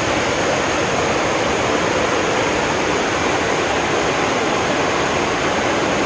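Waterfall rushing steadily as it cascades down sloping rock slabs into a shallow pool.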